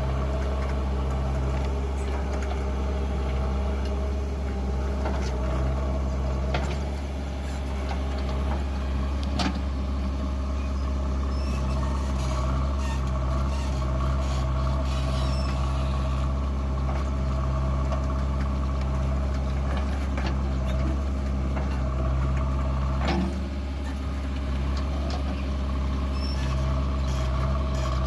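Diesel engine of a JCB 3DX backhoe loader running steadily under load while it digs and loads mud, with a few sharp knocks, one about nine seconds in and one near 23 seconds.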